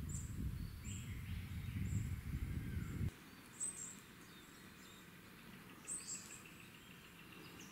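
Wild birds chirping, short high calls repeating, over a low rumble that cuts off abruptly about three seconds in; a fainter high insect-like trill continues afterwards.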